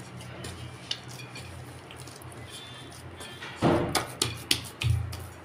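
Hands working oiled dough in a glass bowl, with the bowl knocking and clinking several times on the counter in the last second and a half, the first knock the loudest. A steady low hum runs underneath.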